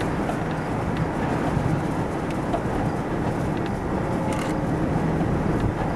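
Strong wind rushing through an open vehicle window and buffeting the microphone in a steady noisy rush, with a low steady hum from the vehicle underneath.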